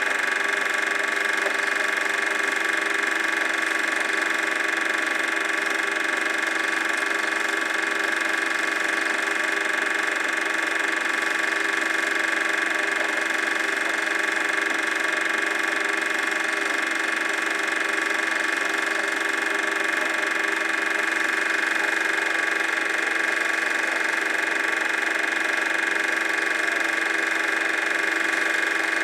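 Super 8 film projector running: a steady mechanical whirr and hum of its motor and film transport that does not change.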